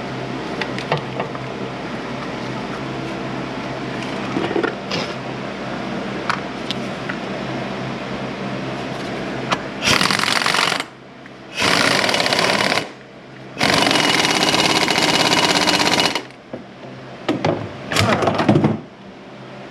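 Power impact wrench running bolts in four bursts, the third and longest lasting about two and a half seconds, after a stretch of steady low hum with scattered clicks: fastening the new transmission mount.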